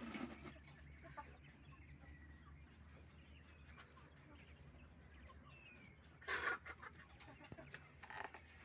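Poultry clucking faintly over a low steady hum, with one louder call about six seconds in and a shorter one near the end.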